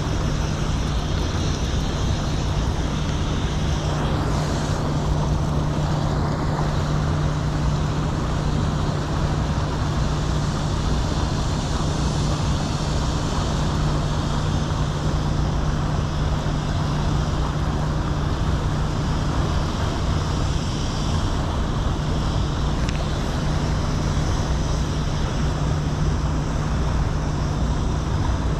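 Steady rush of flowing river water with a constant low machine hum beneath it.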